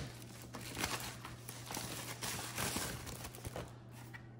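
Soft rustling and crinkling of a thin white protective wrap as a boxed device is slid out of it, with a few light handling clicks.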